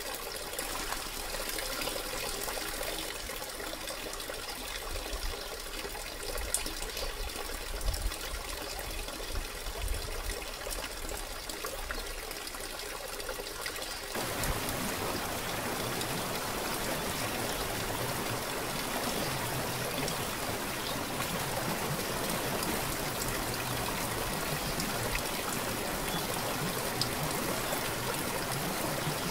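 Waterfall spilling over rock ledges into a pool: a light, splashing trickle, then about halfway through, at a cut, a steadier and fuller rush of falling water.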